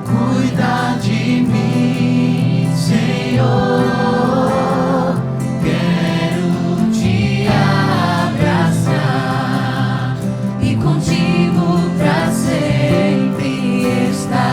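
Christian worship song intro: a choir and vocalists singing over a band of sustained keyboard or synth chords, bass and guitars.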